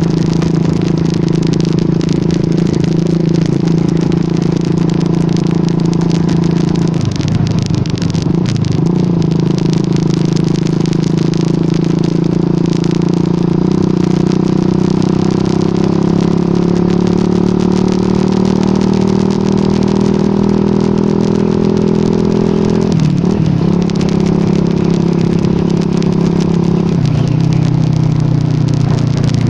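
Yamaha R15 V2's 150 cc single-cylinder engine running under way on the road. The engine note drops briefly about a quarter of the way in, climbs slowly through the middle, then dips again about three quarters of the way in and near the end.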